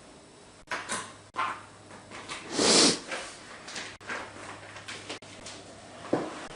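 A person eating: a run of short knocks and scrapes from the fork and the food being handled. A louder, noisy sound comes about two and a half seconds in.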